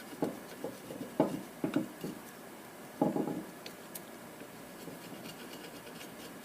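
Metal carburetor parts handled on a workbench: short scrapes and light knocks, the loudest about a second in and again around three seconds in, then quieter.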